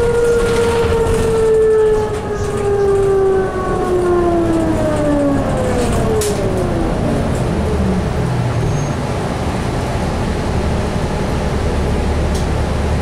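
Allison EP 50 hybrid drive of a 2004 New Flyer DE60LF articulated bus heard from inside the cabin: an electric-motor whine with several overtones falling steadily in pitch over the first seven seconds as the bus slows, then giving way to a low steady engine rumble.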